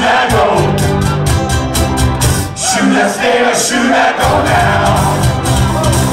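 Live band playing a song with guitars and singing, over a quick steady beat. The bass drops out for a couple of seconds midway and then comes back in.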